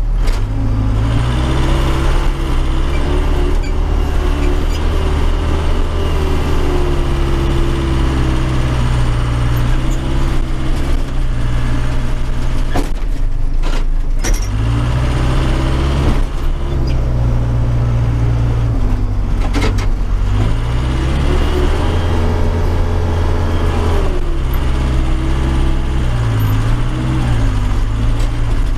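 Case 580 Super K backhoe's four-cylinder diesel engine running under load, heard from inside the cab. Its pitch rises and falls several times as the loader works the snow, with a few sharp knocks along the way.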